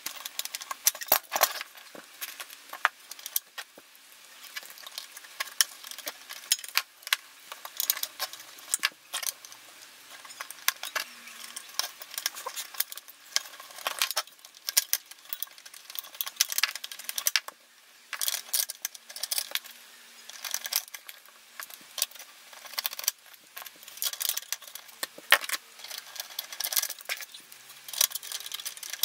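Small metal hand tools clicking, tapping and scraping on a metal chassis and brass connector, as a small open-end wrench works the nut of a coaxial connector. Light clicks come in quick irregular runs, with a few sharper knocks.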